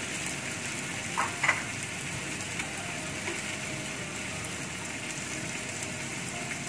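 Raw prawns sizzling in hot margarine and oil in a wok, a steady frying hiss, with one brief sharper sound about a second and a half in.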